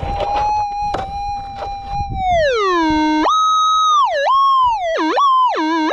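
Minelab GPZ 7000 metal detector's audio giving a target response. A steady threshold tone with a scratchy noise underneath holds for about two seconds. The tone then slides down, jumps high, and swings low and high several times as the coil passes back and forth over a buried target.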